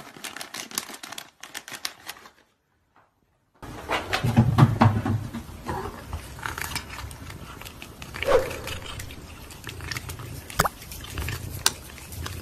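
A fluffy kitten close to the microphone as it comes for a treat held in a person's fingers and eats it, with scattered small clicks and taps. Near the start the sound drops out for about a second, then comes back louder with a short pitched sound and a few sharp clicks.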